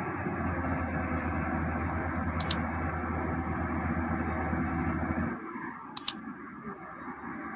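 Caterpillar wheel loader's diesel engine running steadily under load, easing off about five seconds in. Two quick double clicks, like a computer mouse, come at about two and a half seconds and again near six seconds.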